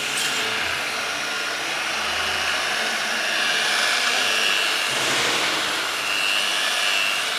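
Grinder running a Rebel One F-line unitized abrasive wheel against stainless steel pipe welds: a steady hiss of the wheel on the metal over the motor, with a high whine that comes and goes, as the welding discolouration is sanded off.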